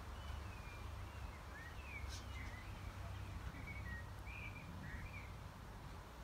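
Small songbird singing in short twittering phrases and whistled chirps for about five seconds, over a steady low rumble.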